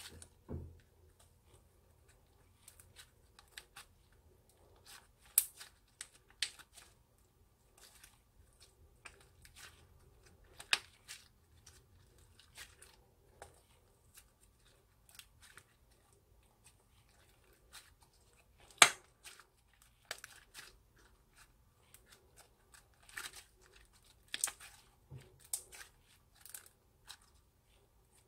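Slime being kneaded, folded and stretched by hand: irregular sticky crackles and small pops, with one sharper, louder pop about 19 seconds in.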